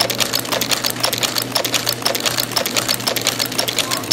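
Chain-making machine running, forming wire into chain links: a rapid, even mechanical clatter of many strokes a second over a steady motor hum.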